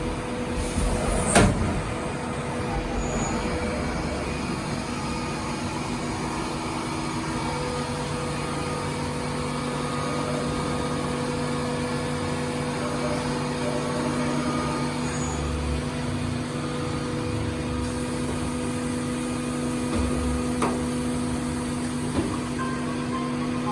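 Hitachi VM40II CNC vertical milling machine running on test: a steady mechanical hum with several held tones, one more tone joining about seven seconds in. There is a sharp knock about a second and a half in.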